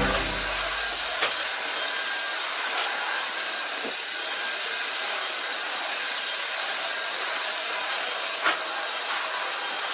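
LG CordZero A9 cordless cleaner with its wet-mop head running steadily as it works across a floor, with a few light knocks, the sharpest near the end.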